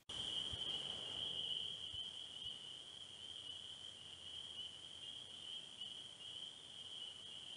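Steady, high-pitched insect trilling, one unbroken note over a soft background hiss.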